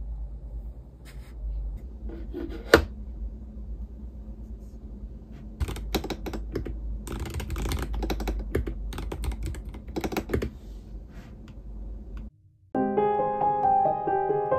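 Typing on a keyboard with clear keycaps: a quick, uneven run of key clicks over a low room rumble, with one sharp knock about three seconds in. Near the end the sound cuts and background piano music begins.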